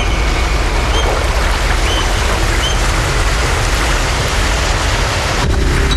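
Steady rush of sea water washing along a rocky, seaweed-covered shore, with a few short high chirps roughly once a second in the first few seconds.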